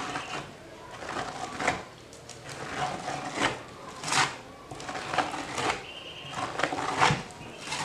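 Plastic spatula scraping polyester filler over a rough fibreglass-covered panel in short repeated strokes, a swishing scrape roughly once or twice a second, each stroke swelling and fading. It is the first coat being pressed into the larger holes.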